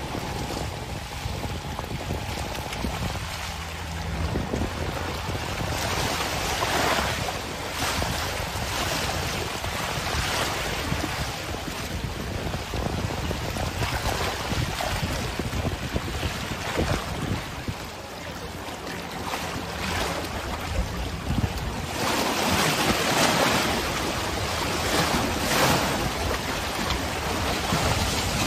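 Wind on the microphone and waves on the sea, with a floatplane's engine running as the ultralight taxis away across the water. The noise grows louder in the last third.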